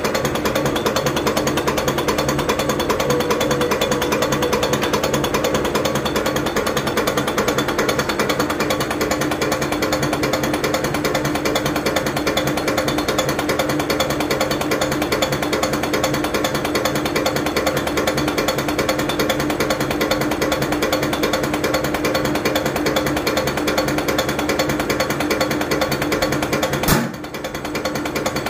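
Diesel injection pump test bench running a pump for an Isuzu 4JB1 engine, its DLLA154 nozzles chattering rapidly as they spray fuel into the graduated test glasses during a delivery test, over a steady hum. A sharp click shortly before the end is followed by a momentary dip in the noise before it picks up again.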